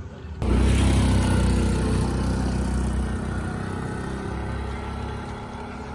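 A motor vehicle's engine running, loudest when it starts suddenly about half a second in and then slowly fading.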